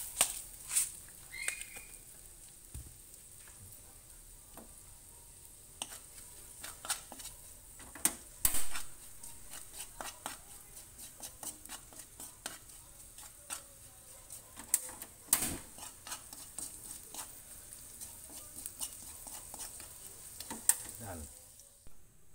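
A spoon stirring and scraping a minced garlic and pepper mixture in a metal wok, with irregular clicks and taps of the spoon against the pan over a steady faint hiss. The sound drops off near the end.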